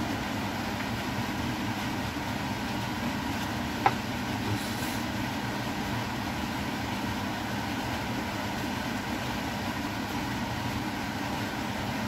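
Steady mechanical hum of a running kitchen appliance, with one sharp click about four seconds in.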